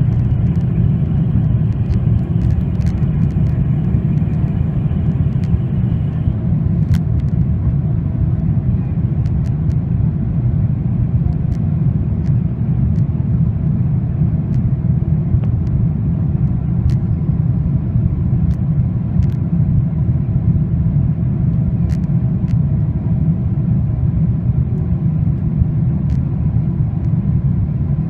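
Steady low rumble of engine and airflow noise inside the cabin of a Boeing 777-300ER descending toward landing, with a few faint clicks.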